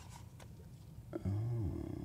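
A man's short, low wordless 'hmm' about a second in, its pitch bending, with faint clicks of handling before it.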